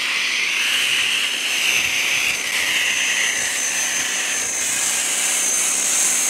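Ryobi 1,600 PSI electric pressure washer running as a foam cannon sprays soap foam onto a car: a steady hiss of spray with a thin high whine throughout.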